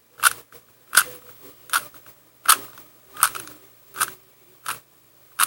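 A Rubik's cube being turned move by move, a sharp plastic click with each layer turn, evenly spaced about one every three-quarters of a second: a PLL algorithm being performed.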